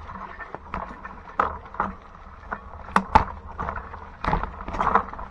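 Mountain bike clattering over a rough trail: irregular sharp knocks and rattles over a low rumble.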